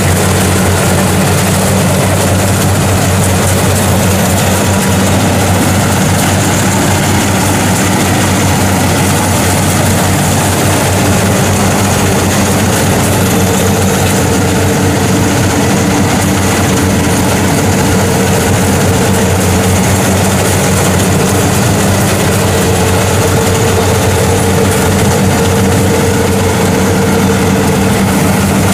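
Kubota PRO 758 combine harvester's diesel engine running steadily under load as the tracked machine crawls through a muddy rice paddy, a constant low hum with a higher whine joining about halfway through.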